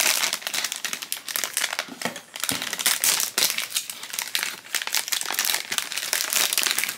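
A foil blind-box bag crinkling and crackling as hands crumple and tear it open, with a short lull a little over two seconds in.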